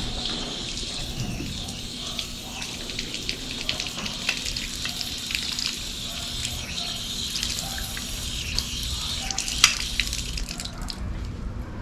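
Running water rinsing metal hood hinges, a steady splashing hiss with scattered light clicks as the parts are handled; the water stops near the end.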